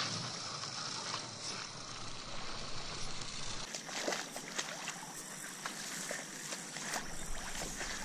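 Light sloshing and pattering in shallow flooded pond water as someone wades and rice and millet seed is broadcast onto the surface, with scattered faint ticks from a few seconds in.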